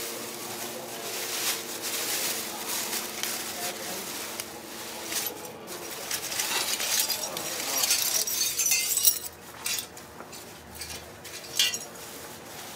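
Plastic bag crinkling and jagged metal missile fragments clinking and clattering as they are handled and tipped out onto a concrete floor, the clatter loudest about eight to nine seconds in.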